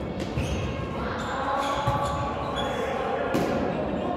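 A volleyball struck by players' hands and arms a few times, sharp slaps echoing in a large sports hall, with players' voices in the background.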